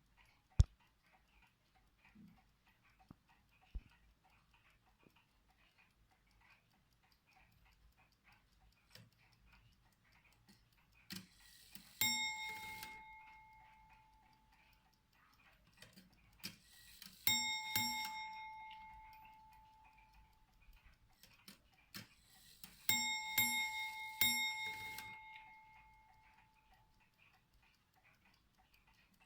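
Ship's bell clock ticking while its bell strikes the 'glasses' three times, a few seconds apart, in groups of strokes that ring out and fade; the last group has the most strokes.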